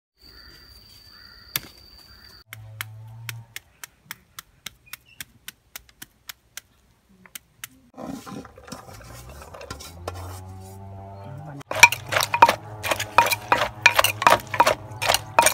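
Wooden pestle pounding spicy santol salad in an earthenware mortar, at about three sharp strikes a second, starting about twelve seconds in. Before that there are lighter regular ticks and a mixed, softer stretch.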